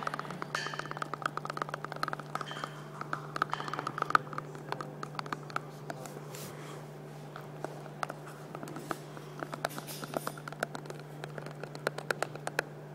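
Irregular clicking and scratching of fingers handling a clear plastic cup, with a steady low hum underneath.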